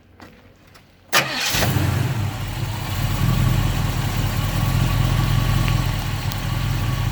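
1970 Chevy Malibu's engine starting about a second in, catching at once with a sharp burst, then idling steadily.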